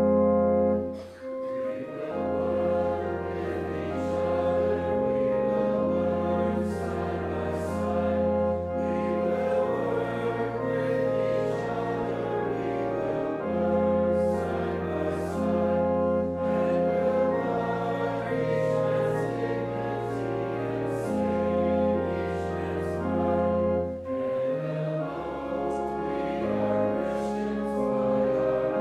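A congregation sings a hymn with instrumental accompaniment: held chords over a slow, steady bass line, with a short break about a second in.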